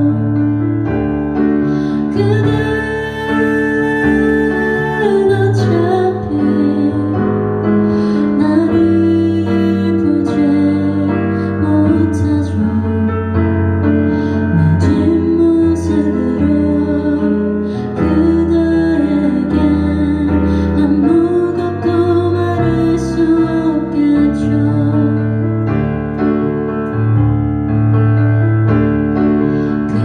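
A woman singing a song live while accompanying herself on a Kurzweil electric stage piano, with sustained piano chords under her melody.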